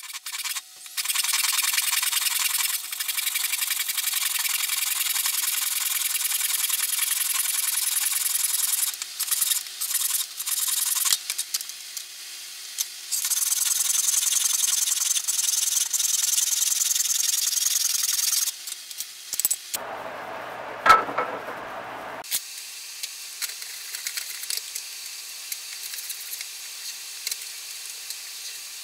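Abrasive rubbing on wood, a steady scratchy hiss in long passes that stops for a few seconds about nine seconds in and again about eighteen seconds in. A short, rougher and lower scraping comes around twenty seconds in, then a fainter hiss.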